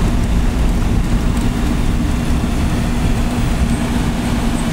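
Land Rover driving along a dirt track, heard from inside the cab: a steady engine hum over a low, continuous road rumble.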